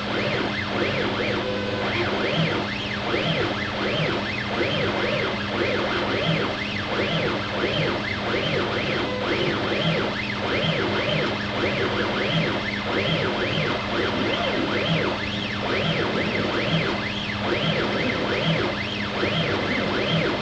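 Vexta stepper motors driving a CNC router gantry, whining in repeated rising and falling pitch sweeps, roughly two a second, as the machine steps through a dovetail-tails program cut in the air. A steady hum runs underneath.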